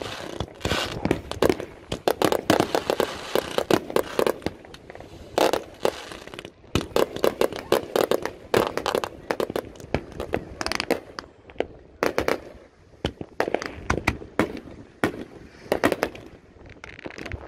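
Many consumer fireworks going off at once: a dense, overlapping run of bangs, pops and crackling from aerial bursts and firecrackers, with no let-up.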